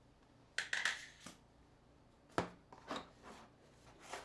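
Handling sounds of a smartphone and a small screwdriver on a table: a short rustle about half a second in, then a few sharp light clicks and taps as they are put down and picked up.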